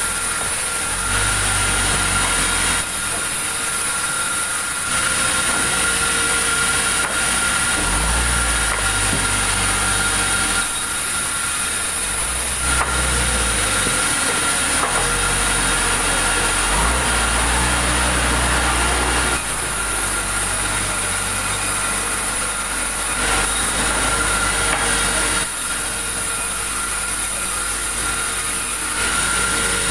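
A machine running steadily with a constant high whine, and a deep low rumble that cuts in and out every few seconds.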